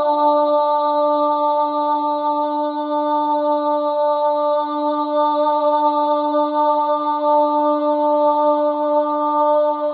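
One voice chanting a single long tone, held at a steady pitch throughout.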